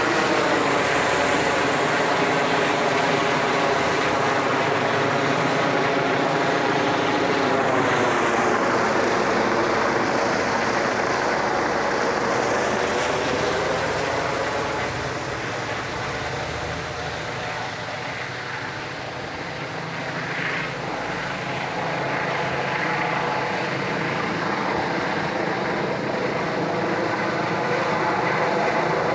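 Police helicopter flying low overhead: a steady drone of rotor and turbine with many even tones. The pitch bends about eight seconds in as it passes, and the sound eases off a little in the second half before growing again.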